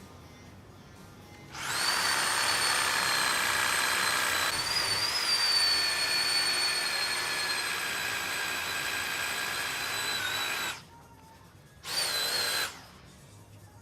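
Electric power tool motor running in a steady high whine for about nine seconds, then a short second burst about a second later; it is being used to cut through tree roots around the buried pipe.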